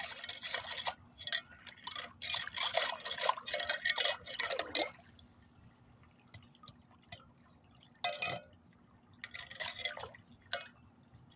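Shallow floodwater splashing and sloshing as a rake is worked through it at a clogged storm-drain grate to clear debris. It comes in two bouts: through the first few seconds, then again about eight seconds in.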